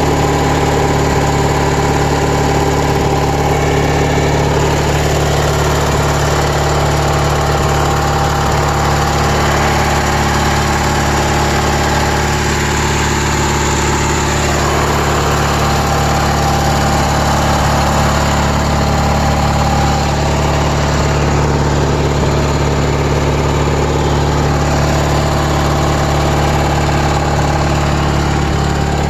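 1997 MTD Yard Machines 42-inch lawn tractor's engine running steadily at constant speed.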